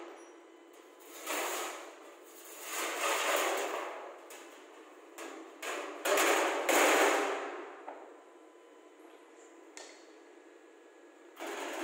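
Hand work noises: three scraping or rubbing passes of a second or more each, with a few sharp knocks in between.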